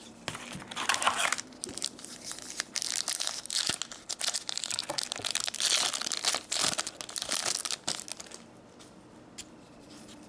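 Foil wrapper of a hockey-card pack being torn open and crinkled: a short burst of crackling about a second in, then a longer run of tearing and crinkling, fading to quieter handling of the cards near the end.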